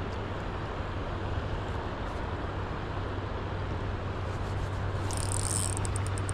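Steady rush of flowing river water with a low hum underneath; about five seconds in, a rapid high ticking begins alongside it.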